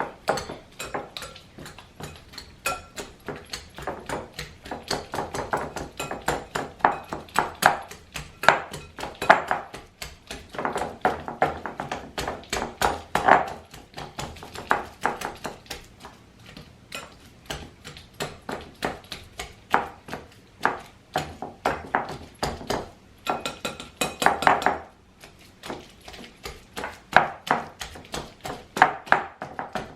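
Wire whisk mashing ripe bananas in a bowl: rapid, irregular taps and clinks of the whisk against the bowl, several a second.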